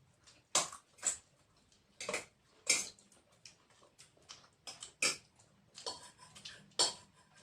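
A person eating a meal with raw green chillies: chewing and lip-smacking in short, irregular bursts, a few louder ones every second or two with fainter ones between.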